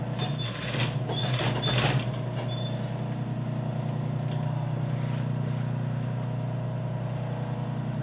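Industrial sewing machine running with a steady motor hum while wool fabric is fed under the needle, with rustling of the cloth in the first two seconds.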